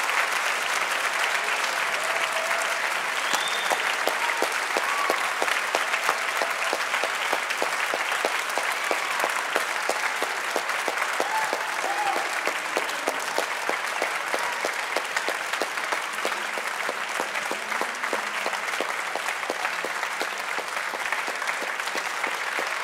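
Large concert audience applauding steadily, a dense, even sound of many hands clapping.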